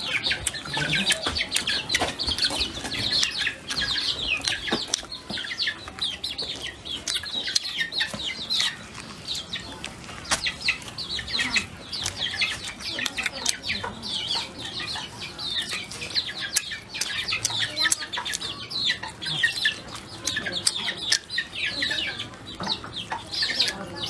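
Chickens clucking and chirping in a busy, unbroken chatter, with scattered sharp clicks of chewing on duck meat and bone close by.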